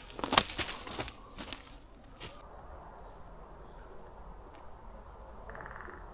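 Several loud crunching rustles in the first two seconds, then a quiet woodland background with a few faint, brief bird chirps and a short buzzing trill near the end.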